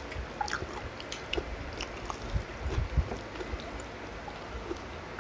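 Eating sounds at a table: scattered light clicks of a metal spoon against a glass serving dish, soft chewing, and a few low thumps about halfway through.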